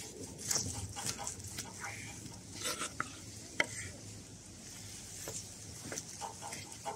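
A kitchen knife sawing through a cooked rump steak held steady with a fork, the blade scraping and clicking on a wooden chopping board in short, irregular strokes.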